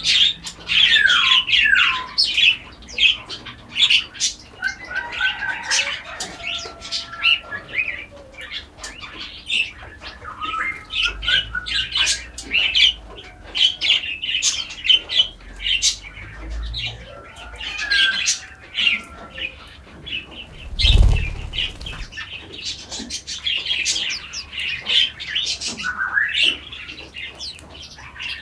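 A chorus of forest songbirds chirping and calling over one another, with quick falling whistled notes near the start. A short low thump comes about three-quarters of the way through.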